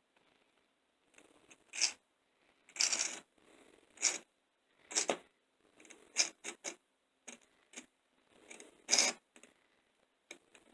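Hands setting N scale model railway cars onto the track: a dozen or so short, irregular clicks, scrapes and rustles.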